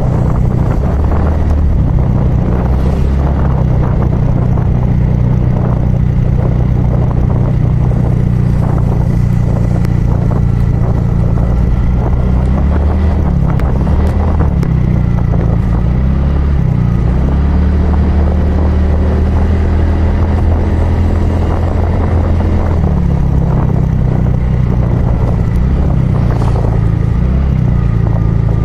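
Motorcycle engine running steadily while riding, its pitch shifting up and down twice, about halfway through and again near the end, as the throttle changes.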